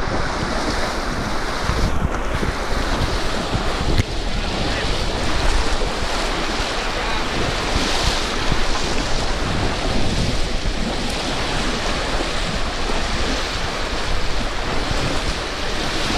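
Shallow river water rushing and splashing around the legs of people wading through it, with wind buffeting the microphone.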